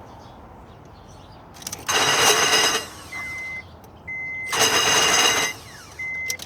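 Starter of a 1998 Acura 2.3 CL spinning with a metallic grinding twice, each time for about a second, without the engine turning over. The owner takes it for the starter's Bendix drive not engaging the flywheel. A steady high beep sounds three times, between and after the two attempts.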